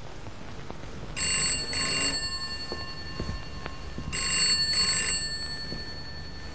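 Rotary-dial telephone ringing: two double rings (ring-ring), about three seconds apart, with a bright metallic bell tone over a faint crackle.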